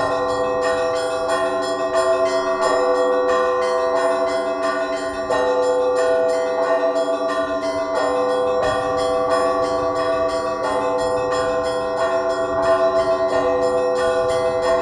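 Russian Orthodox church bells rung by a bell ringer in a matins peal (zautrenny zvon): many bells sounding together, with quick strikes about four a second over their ringing tones.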